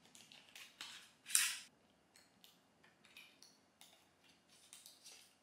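Cardboard and paper packaging of a wooden toothbrush being handled and opened: a string of short rustles and crinkles, the loudest a sharp one about a second and a half in.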